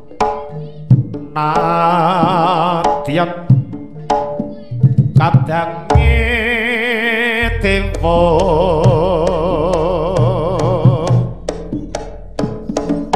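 Live East Javanese jaranan music: hand-played drum strokes keep a steady beat under a high, wavering melody that comes in three long phrases.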